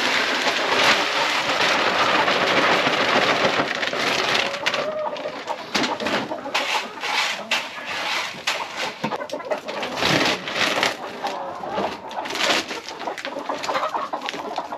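Chickens clucking and calling. For the first four seconds or so, a dense hiss of dry chicken feed pouring from a bag into a plastic bucket, followed by short scraping and rustling sounds from the feed and the bag.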